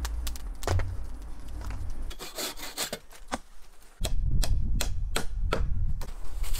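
Scattered sharp clicks at first, then from about four seconds in a run of sharp wooden knocks, two or three a second, as a hand tool strikes a rung of a log ladder, over a low rumble.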